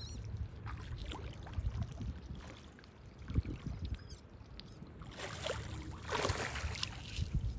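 Water splashing and sloshing, swelling into a louder stretch of splashing about five seconds in: turtles churning the water as they feed.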